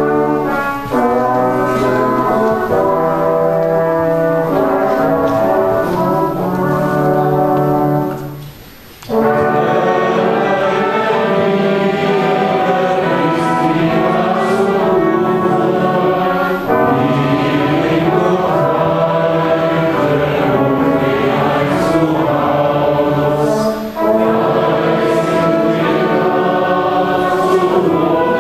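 A brass ensemble plays a hymn in slow held chords. After a brief break about eight and a half seconds in, the congregation sings the hymn with the brass.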